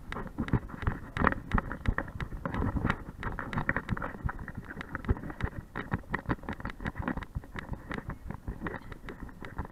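Action camera on a running dog's harness, jostled with every stride: a rapid, irregular stream of knocks, with fur and harness rubbing against the microphone.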